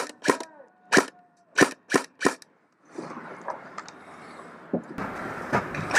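Airsoft guns firing: five sharp single shots in the first two and a half seconds, irregularly spaced. Then a steady hiss with a few fainter pops.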